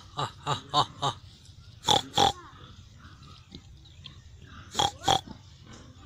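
Pigs grunting. A quick run of five short grunts comes first, then two louder pairs of grunts, about two seconds and five seconds in.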